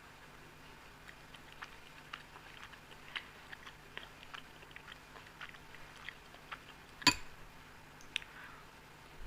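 Close-up chewing of Indian sweets: soft, wet mouth clicks and smacks, irregular. One loud sharp knock about seven seconds in, and a smaller one a second later.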